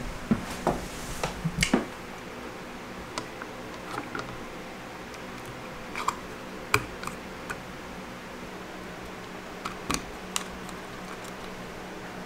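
Scattered light plastic clicks and taps as a yellow Blind Mark drywall-locator target is handled and pressed into a blue plastic electrical box, a quick run of them at the start and single ones after. A faint steady hum runs underneath.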